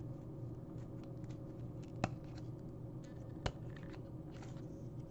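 Hockey trading cards being slid and flipped through by hand, with light rustling and two short, sharp clicks of card edges about two and three and a half seconds in, over a faint low steady hum.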